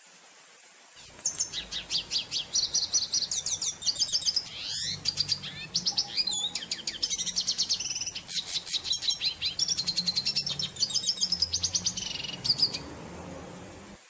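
Red siskin singing: a long, fast, high-pitched twittering song of rapid trills and sweeping notes that starts about a second in and stops near the end.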